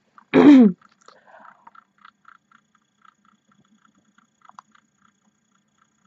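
A person's yawn ending in a short, loud vocal sigh that falls in pitch, about half a second in, followed by faint mouth and jaw clicks. Faint regular ticking runs underneath.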